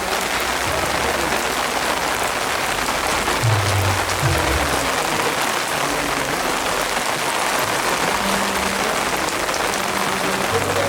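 Heavy rain falling steadily, a constant hiss of drops.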